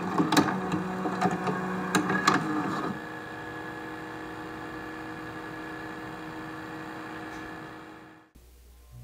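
Video tape machine mechanism: a few sharp clicks over a whirring motor hum, louder for the first three seconds, then steadier and quieter, running down and fading out about eight seconds in.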